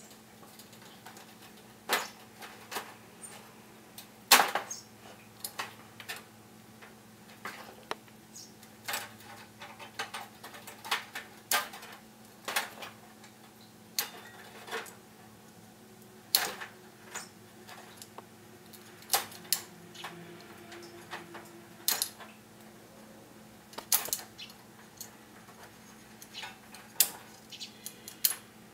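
Irregular small metal clicks and clinks from a screwdriver and fingers working push-on wire connectors off the terminals of a portable heater's switches on a sheet-metal switch strip.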